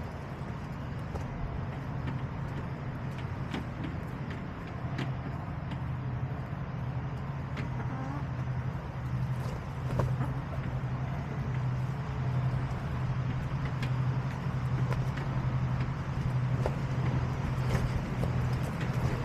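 A motor running steadily, a low hum, with faint scattered clicks over it.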